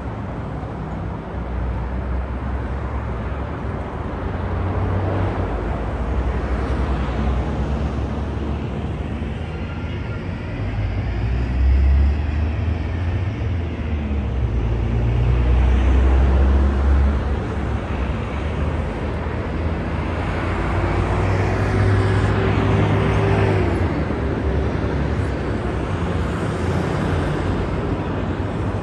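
Road traffic noise from city streets, cars passing, under a heavy low rumble that swells and fades several times.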